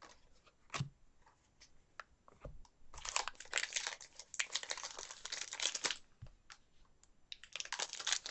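Trading-card pack wrapper being torn open and crinkled by hand. A few light taps and clicks come first, then about three seconds of crinkling, which starts again near the end.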